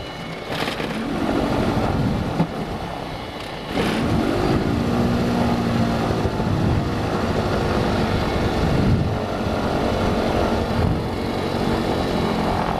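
Mooney M20J's fuel-injected four-cylinder Lycoming engine on a hot start, heard from inside the cabin: it cranks, catches about four seconds in with a rise in speed, and then keeps running. It is a dirty start while the mixture is eased in from full lean.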